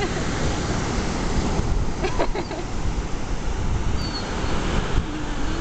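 Ocean surf breaking on a beach, with wind buffeting the microphone as a steady low rumble.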